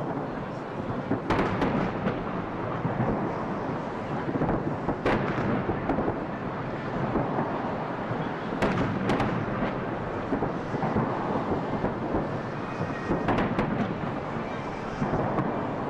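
Fireworks salute shells bursting overhead, their booms blending into a continuous rolling rumble, with sharper cracks about a second in, around five seconds, twice near nine seconds, and again after thirteen seconds.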